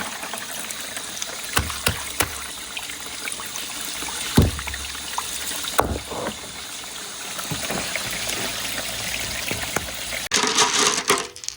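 Water running and trickling steadily through a water marble-run course, with a few sharp knocks of glass marbles against the track. The water grows louder near the end.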